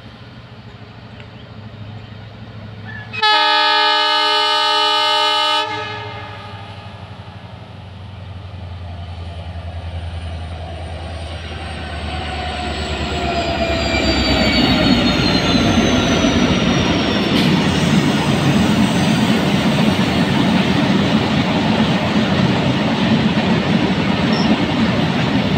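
EMD WDG-4 diesel-electric freight locomotive sounding its horn once, a steady chord of about two and a half seconds, then its engine rumbling louder as it approaches and passes, with tones sliding down in pitch. A train of freight wagons follows, rolling past with loud, steady wheel and rail clatter.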